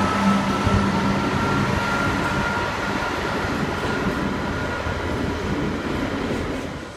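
A container freight train rolling past on the rails behind a Class 66 diesel locomotive. The locomotive's low engine hum fades in the first second, and a thin high whine rising slightly in pitch runs over the rolling noise. The noise dies away near the end as the train moves off.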